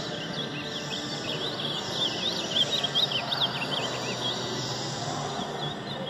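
Caged ultramarine grosbeaks (azulão) singing, several rapid warbling phrases overlapping, densest in the first four seconds and thinning after, over a steady background hiss.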